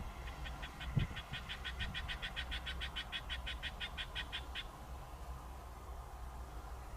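A frog calling: a rapid, even train of short notes, about seven a second, lasting about four seconds. A single low thump comes about a second in, over a steady low rumble.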